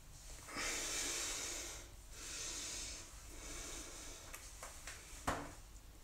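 A person breathing close to the phone microphone: two long, soft breaths in the first half, then quieter rustling and a single sharp click about five seconds in.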